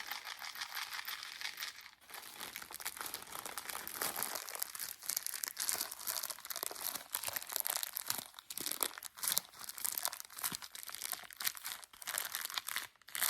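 Packaging crinkling and rustling as it is handled, a dense run of small crackles.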